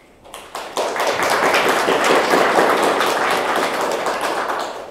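Audience applauding: a few scattered claps at first, filling into steady applause about a second in, then fading away near the end.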